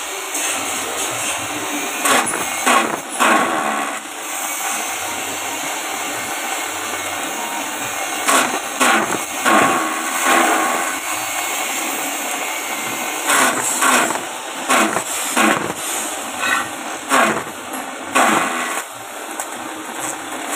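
Electric-motor-driven JG 25 chaff cutter running and chopping grass stalks fed in by hand: a steady whir, with short louder chopping surges each time a bunch of stalks goes through the blades, coming in clusters.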